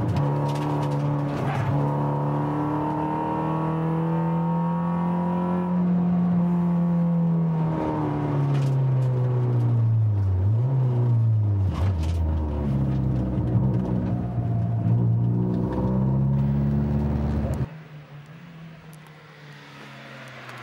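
Volkswagen Polo's engine heard from inside the cabin, driven hard through a slalom course, its revs holding, dropping sharply and climbing again. Near the end the engine sound cuts off abruptly, leaving quieter outdoor background.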